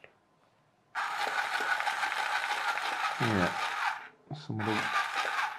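Small electric motor and plastic gearing of a TOMY toy aeroplane whirring. It starts suddenly about a second in, cuts out near four seconds, then runs again briefly. The toy runs as soon as its wired controller is plugged in, because wires in the mended cable are touching and shorting.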